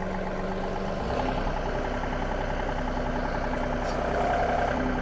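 John Deere 2038R compact tractor's three-cylinder diesel engine running as it pulls a chain harrow across tilled soil. About a second in, the engine grows louder and deeper as it takes up the load.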